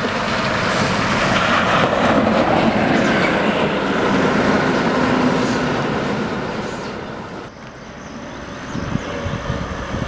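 A large bus passing close by on the road: engine and tyre noise swells, is loudest for a few seconds, and falls away about seven and a half seconds in before traffic noise builds again.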